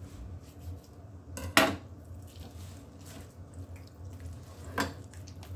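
Kitchen knife clattering against a wooden cutting board: one loud clatter about one and a half seconds in and a smaller one near the end, with faint handling clicks between, over a low steady hum.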